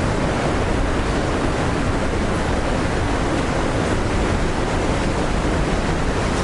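Kegon Falls, a 97-metre waterfall, roaring as a steady, loud rush of falling water.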